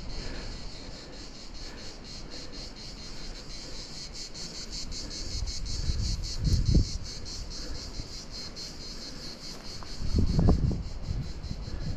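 A steady chorus of insects chirping in a fast, even pulsing rhythm, with two low rumbles about six and ten seconds in.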